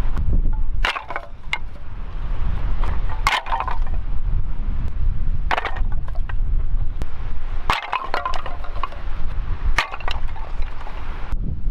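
Outdoor axe chopping firewood: five sharp blows about two seconds apart, each with a short crack of splitting wood. Wind rumbles on the microphone throughout.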